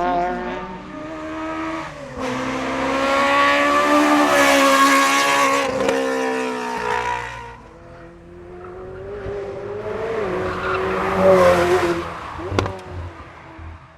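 Race car engines passing on a hillclimb. One car goes by loudly with its engine pitch rising and dropping and fades about seven seconds in, then a second engine builds and passes, with a sharp crack near the end.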